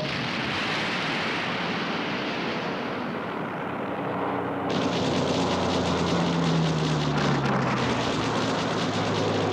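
Aircraft engine noise over a continuous rushing roar of a battle soundtrack. The roar turns harsher and louder about five seconds in, and the engine's pitch falls as it passes near the end.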